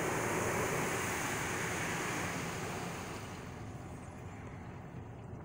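Water spray from a Condor automatic car wash hissing against the car, heard from inside the cabin. The hiss fades over the last couple of seconds.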